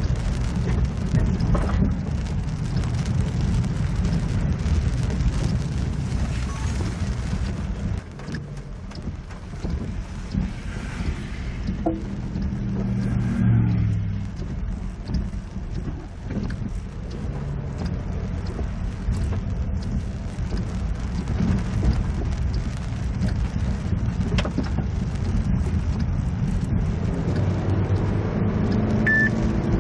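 Car driving on a rain-soaked road in a thunderstorm, heard from inside the cabin: a steady low rumble of tyres, engine and rain, easing off briefly about a third of the way through.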